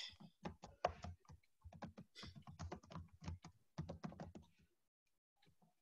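Faint typing on a computer keyboard: a run of irregular keystroke clicks that stops about four and a half seconds in.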